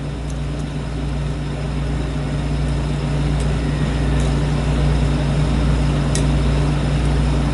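A steady mechanical hum with a low droning tone, growing slightly louder over the first few seconds, with a few faint clicks from the lock pick working the pins of the cylinder.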